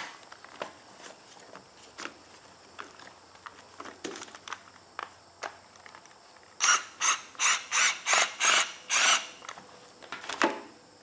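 Wiring harness parts being handled: scattered light clicks, then a run of about eight quick scraping strokes, some three a second, a little over halfway through.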